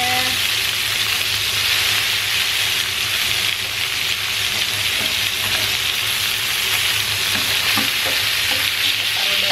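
Leg of lamb steaks searing in a very hot pan of olive oil, sizzling steadily. The oil is hot enough to smoke, for a deep brown sear.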